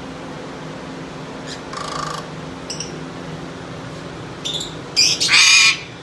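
Eclectus parrot squawking: several short harsh calls, then one loud, longer screech near the end.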